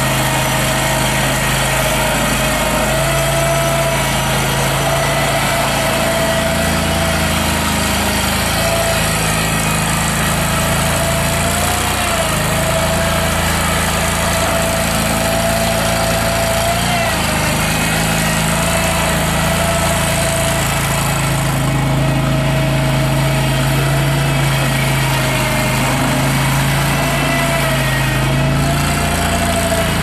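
2011 Toro Dingo TX427 mini skid steer loader's engine running steadily while the rubber-tracked machine drives around, its engine note shifting slightly every few seconds as it manoeuvres. A steady whine sits above the engine.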